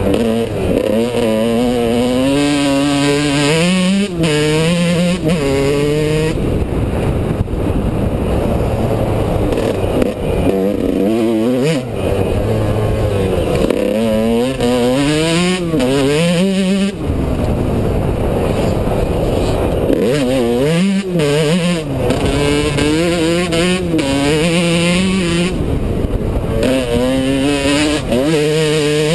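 Yamaha YZ125 two-stroke motocross bike's engine revving hard through the gears, its pitch climbing steeply, dropping back and climbing again many times as it accelerates out of corners and shuts off into them, heard from the rider's helmet camera.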